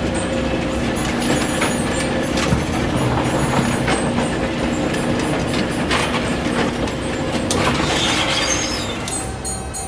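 Roller coaster lift hill in operation as the car is hauled up: a steady mechanical clatter of the lift chain and ratchet, with a held hum and a few sharp clicks.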